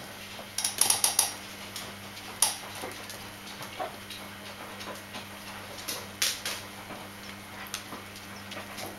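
Bichon Frisé puppies scratching and moving on a hard vinyl floor: scattered small clicks and scrapes, a cluster about a second in and sharper ticks around two and a half and six seconds in, over a steady low hum.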